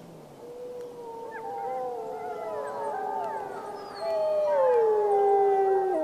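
Several wolves howling together: long, steady howls overlapped by wavering, warbling higher voices from about a second in. About four seconds in, a louder howl starts and slides down in pitch.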